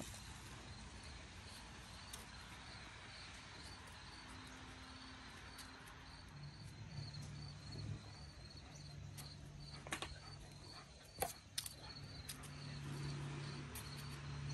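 Faint, steady high-pitched insect chirping, repeating evenly a few times a second. A low hum comes in about halfway, and a few sharp clicks come near the end.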